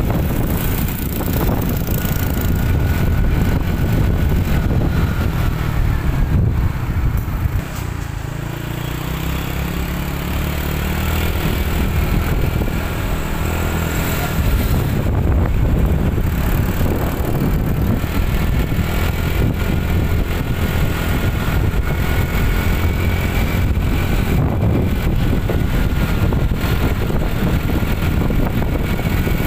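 Ride noise from inside a moving small vehicle: its engine running, with wind on the microphone. About eight seconds in the engine eases off briefly, then picks up again.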